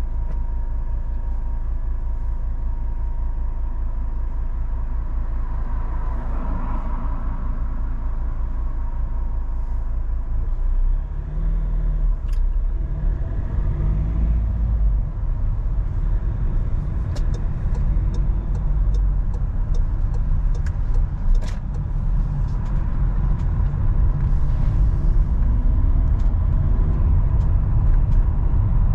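Car driving at speed on a motorway: a steady low rumble of engine and tyre noise, with a few scattered clicks midway.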